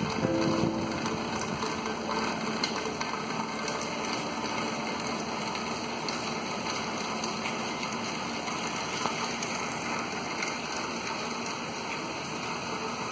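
Steady rain falling on a pond and the wet ground around it: an even hiss with faint scattered drop ticks.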